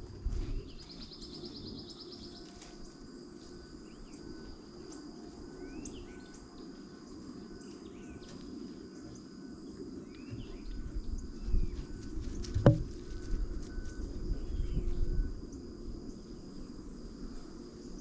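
Late-summer field ambience: a steady high insect drone with a brief buzzing trill near the start, and short bird chirps now and then. About two-thirds of the way in, low rumbling builds, with one sharp knock, the loudest sound.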